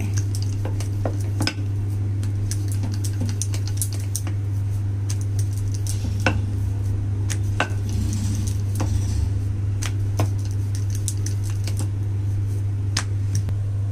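Wooden rolling pin rolling out paratha dough on a stone rolling board, with scattered light knocks and clicks as it moves, over a steady low hum.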